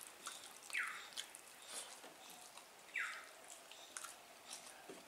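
Quiet sounds of eating rice and fish curry by hand: soft clicks and small wet squelches of fingers working the food and of chewing. A short falling chirp sounds twice, about two seconds apart.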